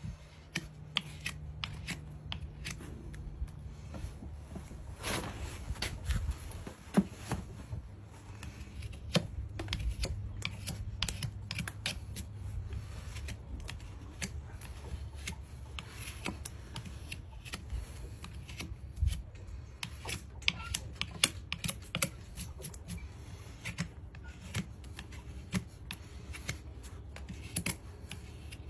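Hoof knife paring a horse's hoof: a long run of crisp, irregular cuts and scrapes as the blade slices through the sole.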